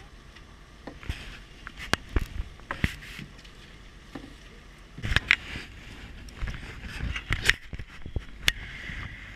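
Irregular knocks and scuffs of a rope ladder's wooden rungs against a steel ship's hull as a person climbs it, with rustling of clothing and gear.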